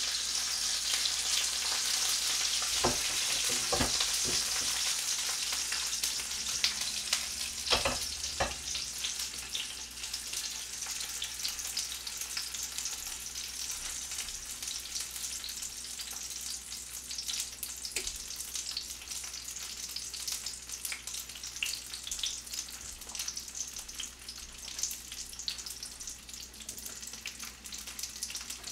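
Frozen jumbo dumplings (wanggyoja) sizzling in oil in a frying pan, just flipped. A few knocks come in the first eight seconds, and the sizzle grows quieter after about eight seconds.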